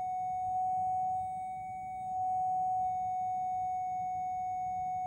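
Steady pure sine tone at about 743 Hz from a loudspeaker driving a resonance tube, near the tube's third resonance (n = 3). It dips slightly in level about a second and a half in, then comes back and holds steady.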